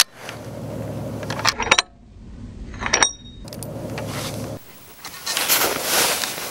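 Bolt of a Savage Model 16 rifle being worked between shots: a series of sharp metallic clicks and clacks, with a short ringing ping about three seconds in, as of a spent brass case. A rustling handling noise follows near the end.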